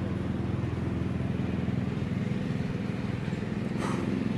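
Steady low motor hum, an engine running at constant speed, with a brief scratchy noise near the end.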